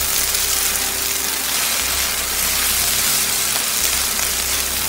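Spätzle, onions and melting Emmentaler frying in butter in a pan, sizzling loudly as a spatula turns the crisping noodles over.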